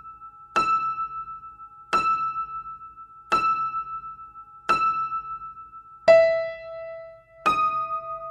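Slow keyboard music: a single high piano-like note struck about every second and a half, each one ringing away. A lower note joins about six seconds in.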